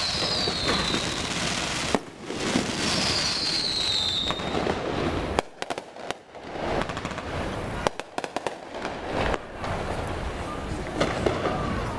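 Aerial fireworks going off overhead: two whistles falling in pitch in the first few seconds, then sharp bangs, several in quick clusters around the middle and a few more near the end, over street noise.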